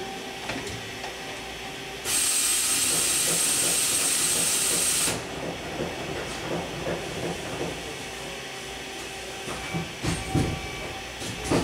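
KIWA KNH-426X horizontal machining center going into a tool change: a steady machine hum, with a loud hiss of compressed air that cuts in about two seconds in and stops abruptly three seconds later. A few clunks follow near the end as the tool-change mechanism moves.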